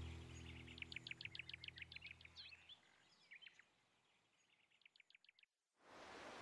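Faint birdsong with two fast chirping trills, over low steady tones that fade away partway through. Near the end the sound drops out briefly, then a steady rushing hiss starts abruptly.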